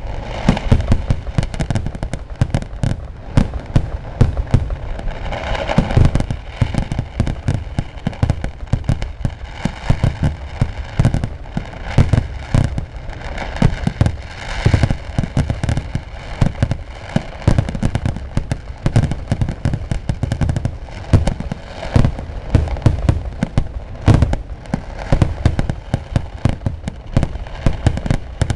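A massed fireworks barrage: a dense, unbroken stream of loud firecracker bangs and booms, many each second, with no letup.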